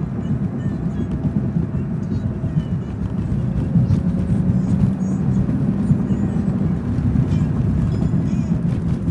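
Steady low rumble of a moving vehicle: engine and road noise that holds evenly throughout.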